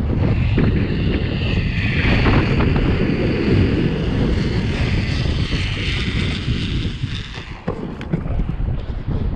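Wind buffeting the microphone: a steady, loud rumble with a fainter hiss above it, easing briefly about seven seconds in.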